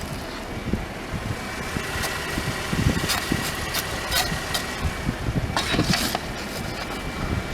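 A vehicle engine running steadily, with a thin steady whine for a few seconds in the middle and several short knocks and clatters.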